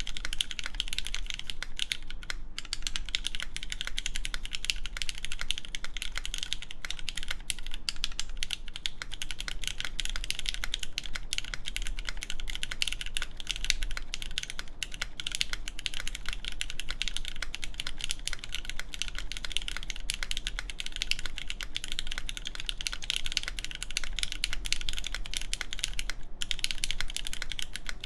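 Continuous fast typing on a mechanical keyboard with lubed Cherry MX Black linear switches in an aluminum plate, under GMK Carbon keycaps: a dense, even stream of key clicks with only brief pauses.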